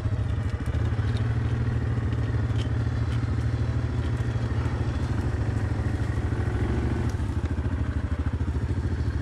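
Yamaha 700 ATV's single-cylinder engine running steadily, with scattered light clicks and clatter over it.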